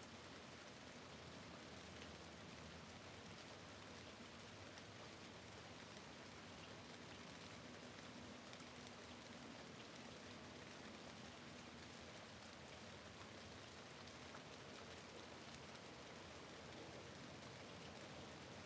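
Faint, steady rain falling against a window, with small scattered drop ticks.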